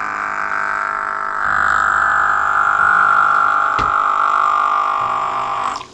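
Small 12 V DC water pump running with its intake in a glass of water: a steady whine that gets louder about a second and a half in, sinks slightly in pitch, and cuts off suddenly just before the end.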